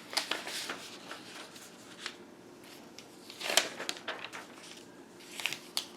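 Sheets of paper rustling and crinkling as they are handled, in short scattered bursts with one louder crackle about three and a half seconds in.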